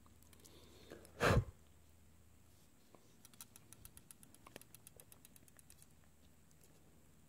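A brief loud muffled burst about a second in, then a run of faint small clicks, several a second, from an iPad's LCD panel and flex cable being handled against the opened tablet's frame.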